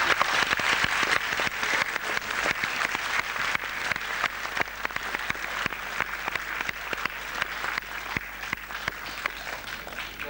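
Audience applauding, loud at first and gradually dying away until it stops.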